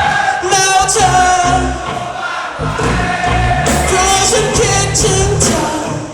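Live pop band playing with a singer's voice carried over the backing.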